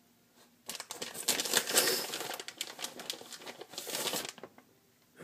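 Plastic bag of shredded mozzarella crinkling as it is shaken and squeezed to sprinkle the cheese out. It starts under a second in and stops about four seconds in.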